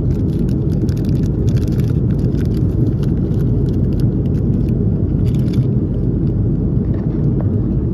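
Steady low drone of an airliner cabin in flight, the jet engine and airflow noise heard from a passenger seat. Light crackly rustles sound over it during the first five seconds or so.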